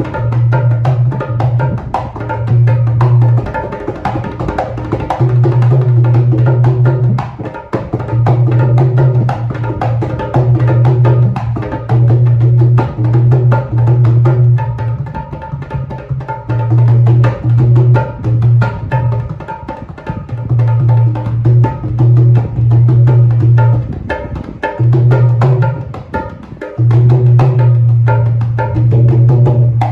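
A new dholak played in a steady rhythm as a sound check: a deep bass-head boom held for a second or more at a time, breaking off and coming back, under quick, crisp strokes on the treble head.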